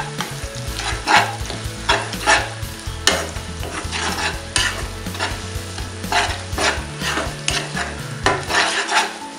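Chopped onions, green chillies and crushed ginger-garlic frying in hot oil in a nonstick kadhai, stirred with a silicone spatula: a steady sizzle with a scraping stroke about once a second.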